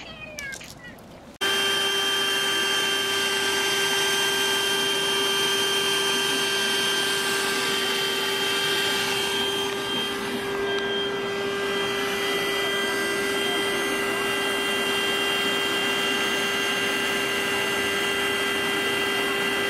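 A steady machine running loud and unchanging, with a constant whine over a wash of noise, starting abruptly about a second and a half in.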